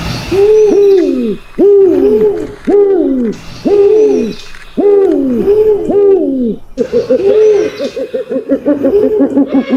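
Rock eagle owl (Indian eagle owl) calling: repeated hoots, mostly in pairs, each dropping in pitch. About seven seconds in they give way to a quicker run of short, rapid notes.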